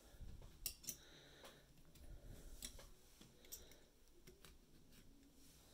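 Faint, irregular metal clicks from a circular sock knitting machine as its heel forks are shifted and needles raised.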